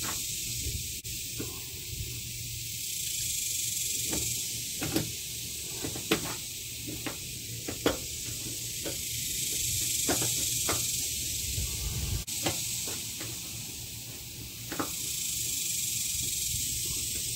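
Hand screwdriver driving Phillips screws through a plastic mud flap into the wheel-well trim, heard as a dozen scattered small clicks and knocks. A steady high hiss runs underneath and swells twice.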